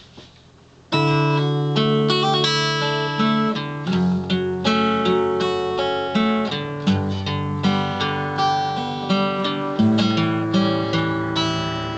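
Steel-string acoustic guitar played solo, picked and strummed. It comes in about a second in, and the notes ring on one after another.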